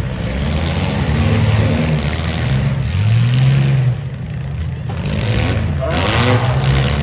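Several demolition derby car engines revving up and down over one another, with a louder burst of noise about six seconds in.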